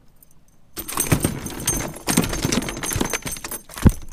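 Rapid clattering, clicking and rattling of a landed northern pike and a metal spinnerbait being handled in a plastic kayak while the hook is taken out, starting about a second in, with one sharp knock near the end.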